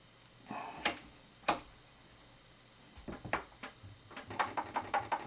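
Clicks and knocks from a knife-maker's vise being handled with a knife clamped in it: two sharp clicks about a second in, then a run of clicks that quickens to several a second near the end.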